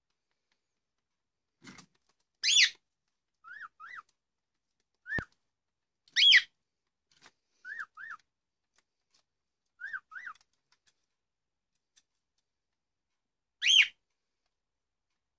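Cockatiels calling: short two-note whistles repeated several times, with three louder, harsh calls near the start, about six seconds in and near the end.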